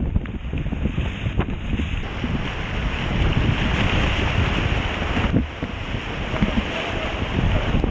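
Whitewater river rushing and splashing around a kayak, with paddle strokes slapping the water and wind buffeting the microphone of a bow-mounted camera. It runs a little louder in the middle and eases slightly past five seconds in.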